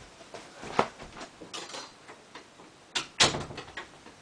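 A bedroom door being pulled shut about three seconds in: a sharp click, then a louder knock as it closes. Before it come lighter knocks and rustles of someone getting up off the floor and moving across the room.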